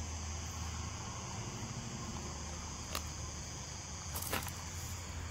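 Crickets trilling steadily at night over a low, steady hum. A few faint clicks come about three and four seconds in as vinyl pinstripe tape is handled and pressed onto the grill.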